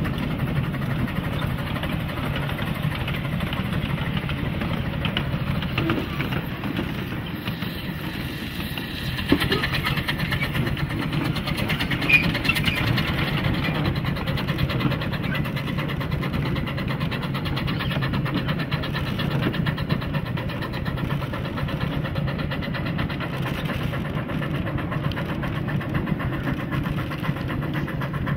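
Quarter-scale live steam train on 9-inch-gauge track running steadily: the continuous rumble and clatter of the riding cars' wheels on the rails, with one sharper knock about twelve seconds in.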